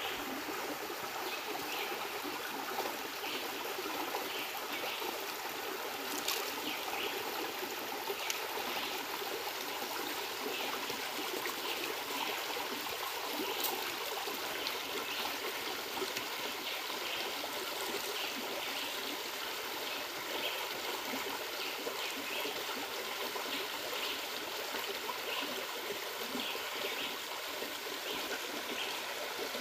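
Shallow rocky river flowing steadily, with faint small splashes and swishes of rice being washed by hand in a pot of water.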